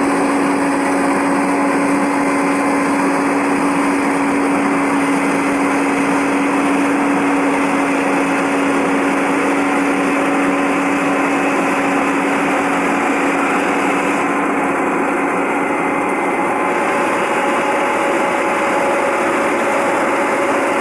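Rice harvester running steadily: a constant engine hum over dense mechanical noise, with no pauses or changes in loudness.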